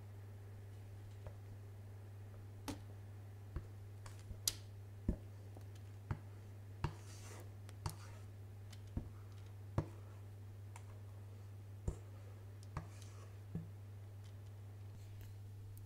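Faint, irregular clicks and light taps, about a dozen, from a bowl and silicone spatula as stiff meringue is poured and scraped out onto a parchment-lined baking sheet, over a steady low hum.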